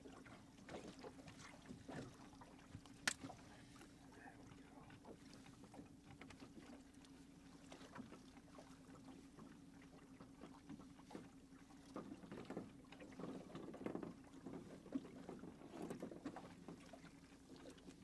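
Faint handling sounds as pliers work a jig hook out of a burbot's mouth: light clicks and rustling of gloves and clothing, with one sharp click about three seconds in and busier handling near the end, over a steady low hum.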